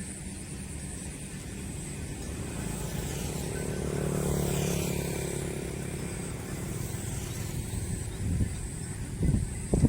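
A motor vehicle's engine passing by, its hum swelling to a peak about halfway through and then fading. A few sharp thumps come near the end.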